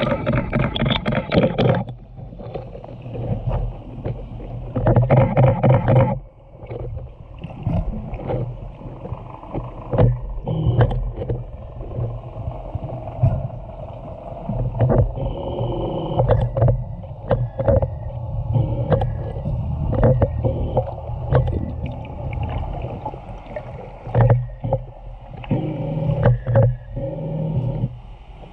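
Underwater sound through a GoPro housing among feeding killer whales: many sharp clicks and short buzzing, pitched calls, loudest in the first two seconds and again around five seconds in, over a low rumble.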